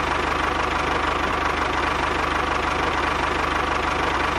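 Tractor engine running steadily at idle, with an even low pulsing beat.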